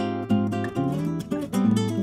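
Background music: an acoustic guitar strumming quickly.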